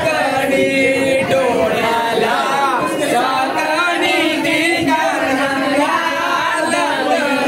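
A group of voices singing together in a chant-like song.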